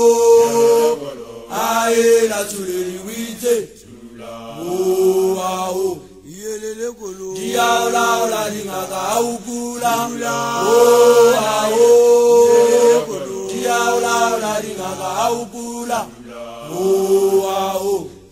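A group of voices chanting a slow initiation song in long held phrases of a few seconds each, the notes sliding up and down, with short breaks between phrases.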